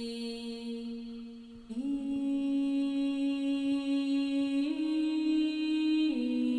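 Background music: a held, droning hum-like tone that shifts to a new pitch three times.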